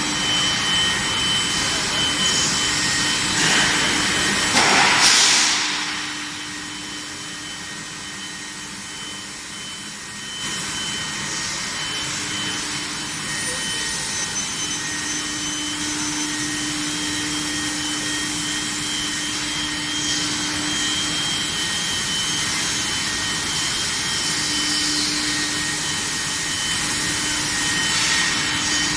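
Steady industrial machine noise from an induction quenching and tempering line: a hiss with faint high whines and a low hum that comes and goes. The noise swells about four seconds in, drops back for a few seconds, then picks up again.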